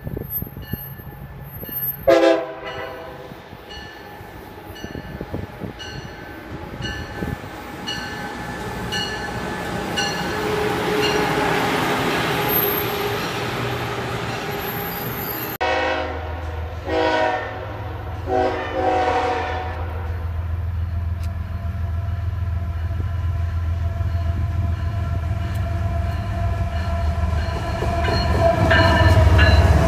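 A MARC electric commuter train gives a short horn blast about two seconds in and rolls past, its wheel-and-rail noise building. Then a CSX diesel freight locomotive sounds two horn blasts and approaches with a steady low diesel rumble that grows louder as it nears.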